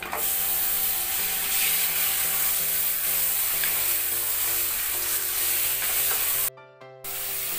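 Bone-in meat tipped into hot oil and spices in a pressure cooker, sizzling loudly as it is stirred with a wooden spoon. The sizzle cuts out briefly near the end, then returns.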